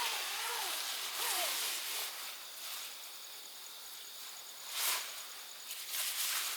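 Forest ambience: a hiss that swells and fades in gusts, with a few short gliding bird calls in the first second and a half and a faint, high, pulsing insect trill after that.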